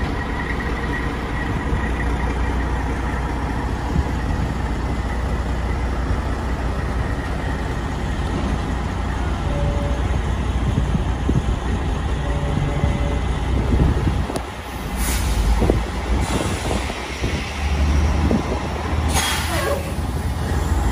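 Semi truck's diesel engine running at low revs as the tractor-trailer reverses slowly, with two short air-brake hisses, about 15 and 19 seconds in.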